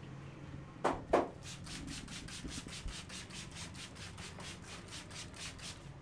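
Massage on a person's head: two sharp slaps of the hands about a second in, then quick rhythmic rubbing of hands over the hair and scalp, about seven strokes a second.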